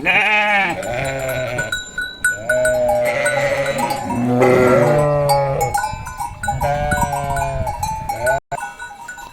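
A flock of sheep bleating, many calls overlapping one after another, with small livestock bells clinking.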